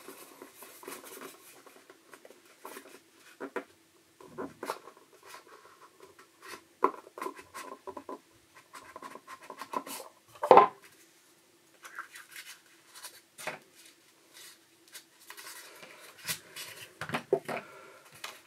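A camera lens being worked out of a tight-fitting cardboard box and handled: cardboard scraping and rustling with scattered soft clicks and knocks, and one sharper, louder knock about ten seconds in.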